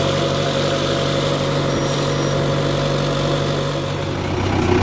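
Tractor diesel engine running steadily as the tractor drives along, heard from the driver's seat as an even, low hum.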